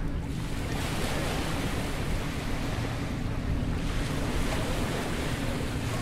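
Atlantic surf breaking and washing up a sand-and-pebble beach, a continuous wash that swells twice, about a second in and again about four seconds in. Wind buffets the microphone as a low rumble underneath.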